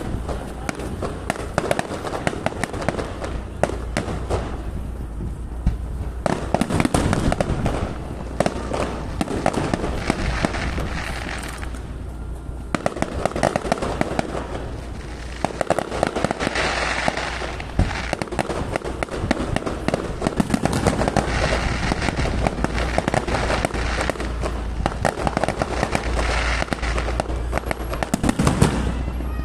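A fireworks display: a continuous barrage of bangs, pops and crackling bursts with no pause, over a steady low hum.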